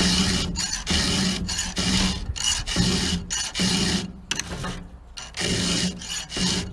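Hand file rasping back and forth across the cutter teeth of a McCulloch chainsaw chain, sharpening it, about two strokes a second. The strokes pause for a second or so about four seconds in, then start again.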